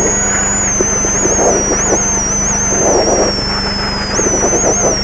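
Rally car's engine and drivetrain heard from inside the cabin, running hard with a high whine that follows the revs. The revs sag as the car slows, then jump up sharply with a downshift about four seconds in.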